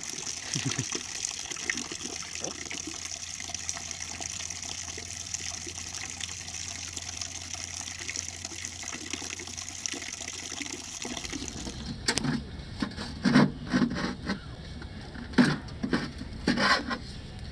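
Green coolant-laden oil pouring out of a 7.3 IDI diesel's oil pan and splashing onto the ground in a steady stream: the coolant has got into the crankcase. About twelve seconds in, the pouring gives way to a series of sharp knocks and clunks.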